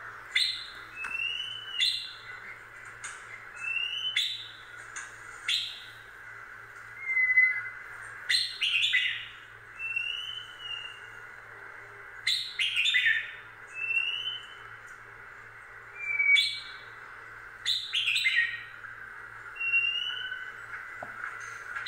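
A bird calling repeatedly: a sharp chip followed by a short whistled note that rises and falls, about every one and a half to two seconds, over a steady high hiss.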